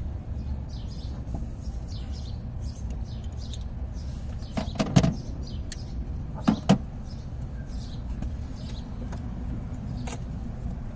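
Steady low rumble, with a few sharp knocks and clicks about halfway through and one more near the end, from tools and parts being handled at the engine bay.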